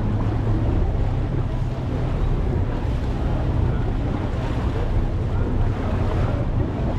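Motorboat engine running with a steady low hum, under the rush of wind on the microphone and water washing past the hull.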